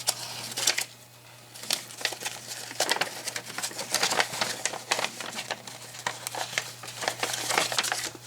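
Close handling noise: irregular crinkling and light clicks, over a faint steady low hum.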